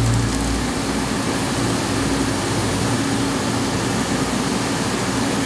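CNC vertical mill running, with a 45-degree face mill facing off a 416 stainless steel blank under flood coolant: a steady hiss of coolant spray and cutting. A low machine hum drops away just after the start while the hiss carries on.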